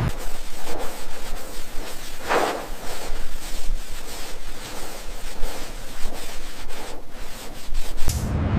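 Abrasive rubbing on a surface, with scattered light ticks and one louder stroke about two seconds in.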